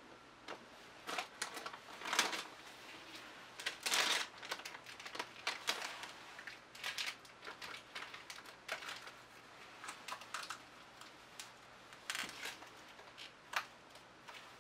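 Irregular light clicks, taps and short crinkling rustles, as of small things and plastic being handled, coming one to three a second with the loudest around two and four seconds in.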